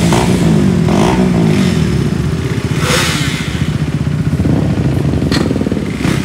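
Several sport motorcycles running together, their engines idling with revs rising and falling.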